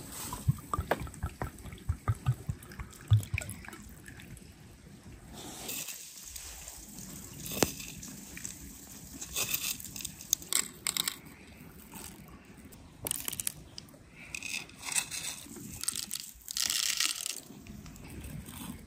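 Whole black peppercorns sprinkled by hand into glass jars, falling in short bursts of crisp patter. A few soft knocks in the first few seconds.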